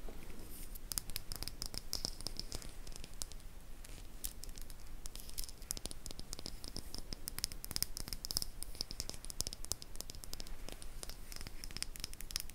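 Close-miked fingernails scratching and tapping a thin black plastic stick, a dense, irregular crackle of tiny clicks.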